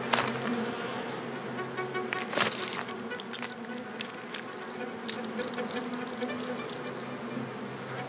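Honeybees buzzing in the hive: a steady low hum with crackly clicks and scratches over it. Two brief louder rustles come right at the start and about two and a half seconds in.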